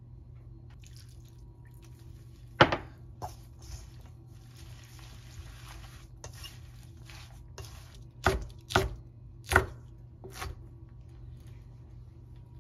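A kitchen knife chopping on a wooden cutting board in a few sharp, separate strokes: three early on, then four in quick succession later, as bird's eye chillies are cut. Between them comes a soft rustle of chives and flour being tossed in a stainless steel bowl.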